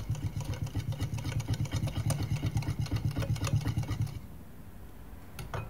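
Whisk beating eggs, sugar and oil in a bowl in a fast, even rhythm of strokes, stopping about four seconds in. A single light knock follows near the end.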